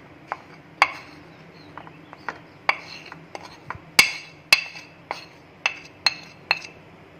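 Steel spoon clinking and tapping against a glass plate while scooping flour: about a dozen irregular sharp clinks, the loudest pair about four seconds in.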